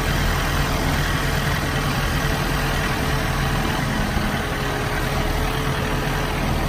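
Farm tractor engine running steadily as the tractor is driven, with a faint steady whine above the drone.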